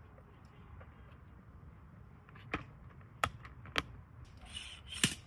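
Four sharp knocks over a low steady rumble, the first about two and a half seconds in and the last near the end, with a hiss rising near the end.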